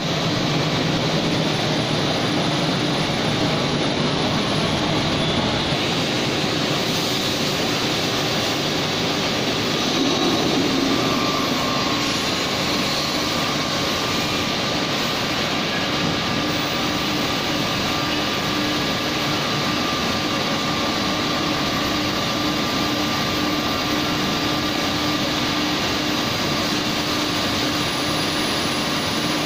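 Rotary friction welding machine running through a weld: a steady, dense machine noise while the joint is heated red-hot by friction, with a steady hum setting in about ten seconds in.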